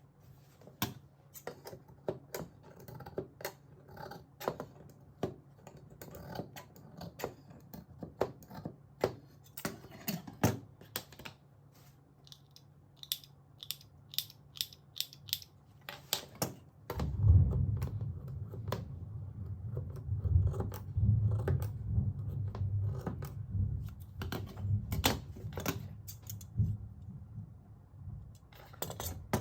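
Sewing scissors snipping, a long run of irregular sharp clicks as the blades open and close; from about halfway a low rumbling handling noise runs under the snips.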